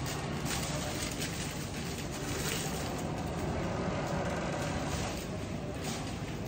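Steady background room noise with a low hum, and a few faint clicks and rustles from greenery stems being handled and pushed into an arrangement.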